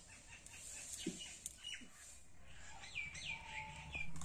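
Small birds chirping: scattered short high chirps, then a quick run of about four falling calls around three seconds in.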